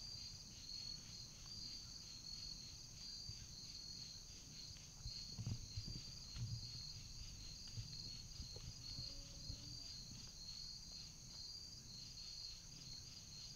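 Steady insect chorus of the kind crickets make: a fast, evenly pulsing high trill. A few soft low thumps come about halfway through.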